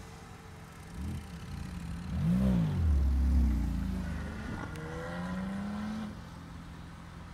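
Porsche 911 flat-six engines as cars pull away one after another. An engine revs up and back down in a quick blip about two and a half seconds in, the loudest moment, then another accelerates with its pitch rising for a second or two before easing off.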